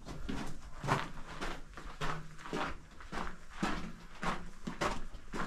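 Footsteps on the loose rock and dirt floor of a mine tunnel, walking at a steady pace of about one step every two-thirds of a second.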